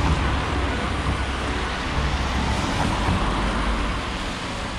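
City street traffic on wet asphalt: a steady rumble of passing cars with tyre hiss, easing a little near the end.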